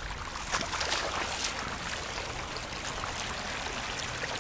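River floodwater running across a paved street, a steady rushing, with a few splashes of boots wading through it.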